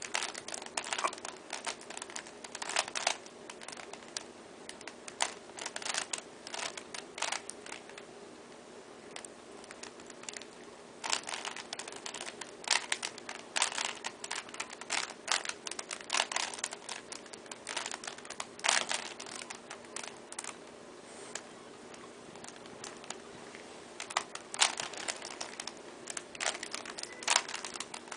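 A loose plastic Rubik's cube being turned by hand, its layers clicking and clacking in quick runs separated by short pauses.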